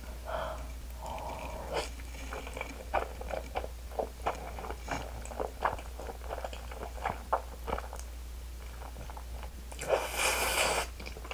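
Close-up eating sounds of a big mouthful of spicy buldak ramen noodles being taken in and chewed, with many small wet mouth clicks. A louder rushing sound of about a second comes near the end.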